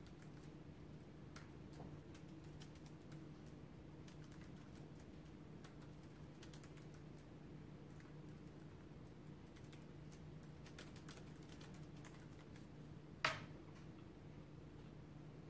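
Faint typing: scattered soft key taps, with one sharper click near the end, over a low steady hum.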